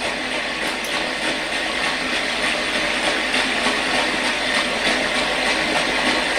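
Steady, even hiss of background noise with no clear events in it.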